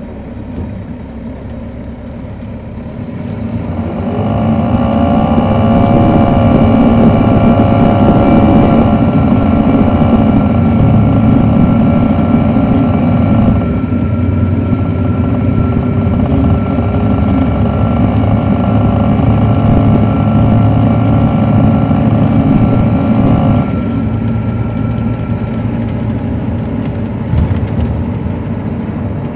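Caterpillar C13 diesel engine of an MCI D4500CL coach, heard from on board. From about three seconds in it pulls harder and its note rises as the bus accelerates, and the note changes around nine and fourteen seconds as the Allison automatic transmission shifts up. It then runs steadily at speed and eases off near the end.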